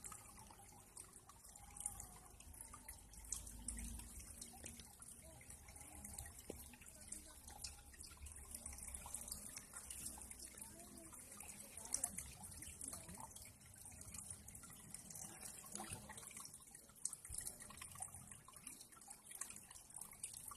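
Water trickling and dripping, with many small irregular drips and splashes over a faint steady hiss.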